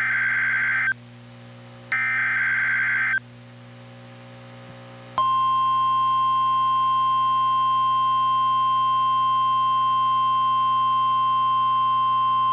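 NOAA Weather Radio broadcasting a Special Marine Warning header: the end of one SAME digital data burst and then the last, each a raspy warble a little over a second long. About five seconds in, the steady 1050 Hz warning alert tone starts and holds. A faint low hum runs underneath.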